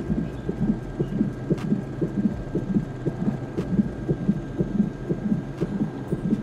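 Fetal heart monitor's Doppler speaker playing the baby's heartbeat as a quick, even pulse.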